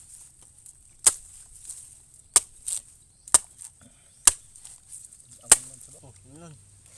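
A blade chopping into a young coconut to open it: five sharp strikes roughly a second apart, the last the loudest.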